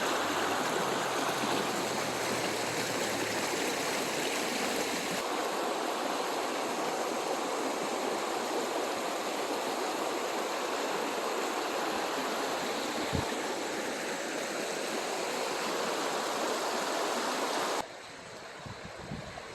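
River water rushing steadily, then the sound drops suddenly and turns much quieter near the end.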